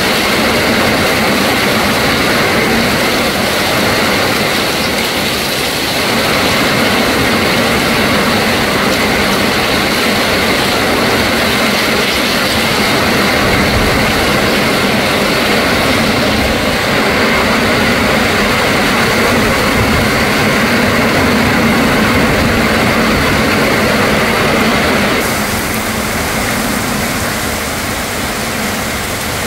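Heavy rain pouring and strong wind gusting through trees in a storm, a loud, steady rush of noise.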